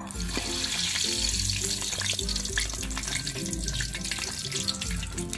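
Pork hock sizzling and crackling in hot cooking oil in a wok, starting suddenly as it is lowered in for its second fry. The dense hiss runs on steadily with many small pops.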